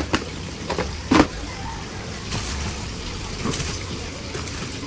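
A plastic detergent container and measuring scoop handled at a top-loading washing machine: a few light knocks in the first second and a half over a steady low hum.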